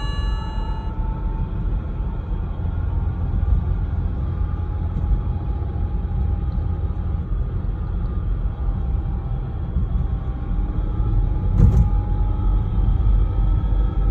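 BMW E90 driving, with a steady low road rumble and a thin whine that drifts slowly in pitch, which the owner suspects is the differential. A brief ringing tone sounds at the start, and a single sharp knock comes near the end.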